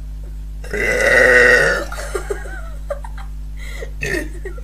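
A woman's long, loud burp lasting about a second, starting shortly after the beginning.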